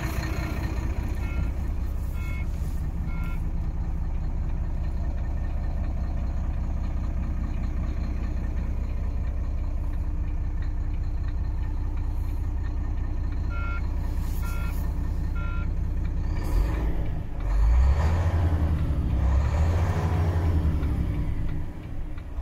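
A Volvo FM 11.370 truck's 11-litre inline-six diesel idling, heard from inside the cab. Two sets of three short beeps about a second apart sound over it, one near the start and one about two thirds of the way in. The engine grows louder for several seconds near the end.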